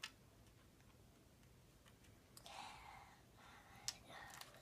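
Near silence broken by faint rustles and two sharp clicks, one at the start and one near the end, as a plastic Lego helicopter model is handled.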